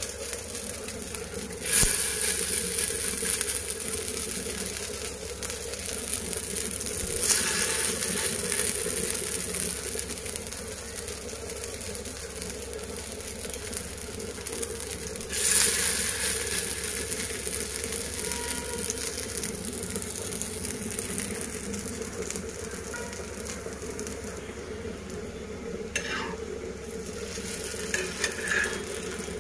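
Tikki patties shallow-frying in hot oil on a flat tawa, a steady sizzle that surges louder several times as more patties are laid into the oil.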